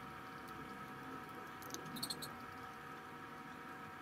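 A few faint clicks and ticks from a T-handle wrench turning the bolts of a Stihl 028 chainsaw's clutch-side cover, clustered about two seconds in, over a steady hum.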